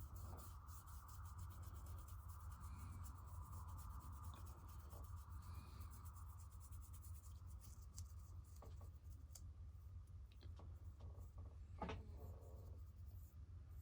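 Faint soft scratching and rubbing of a paintbrush wet with naphtha worked over soft sculpting clay, over a low steady hum, with a sharper click near the end.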